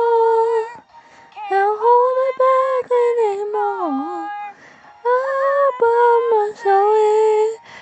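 A song: a single sung melody line of mostly held notes, one sliding down near the middle, with short breaks between phrases.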